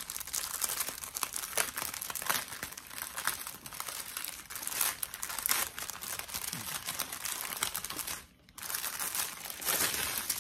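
Clear plastic bag of diamond-painting drill packets crinkling as hands handle and open it, with a short pause about eight seconds in.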